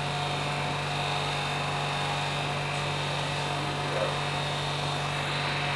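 Kitchen range hood fan running with a steady hum.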